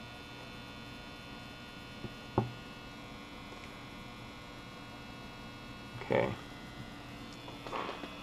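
Steady electrical mains hum, with a single sharp tap about two and a half seconds in.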